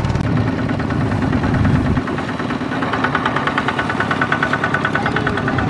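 Single-cylinder diesel engine of a two-wheel walking tractor running with a fast, even knocking beat. The low rumble drops away about two seconds in, and a sharper, higher clatter comes up about a second later.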